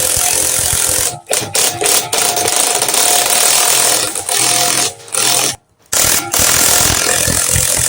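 Impact wrench running in long bursts with short pauses between them, winding coil spring compressors down to compress a car's front suspension spring.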